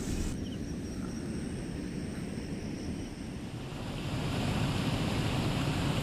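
Steady rush of water pouring down a small waterfall, growing louder about four seconds in.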